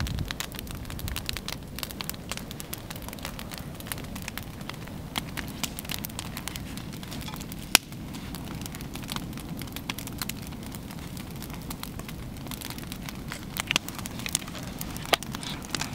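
Wood campfire burning, crackling and popping irregularly over a steady low rumble, with one sharp, loud pop about eight seconds in.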